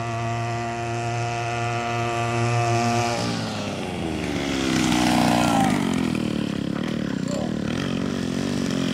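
Small two-stroke engine of a motorized bicycle running at a steady high speed, then its pitch drops over a few seconds as the bike slows, and it runs unevenly at low revs, rising and falling, as the bike comes to a stop.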